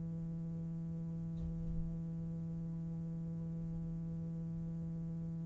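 A steady, low humming drone tone with a row of even overtones, holding one pitch without change. A faint soft sound comes about a second and a half in.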